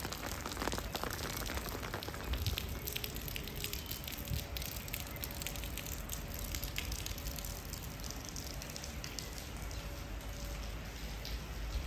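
Heavy rain falling, many separate drops ticking close by over a steady hiss, with a low rumble underneath.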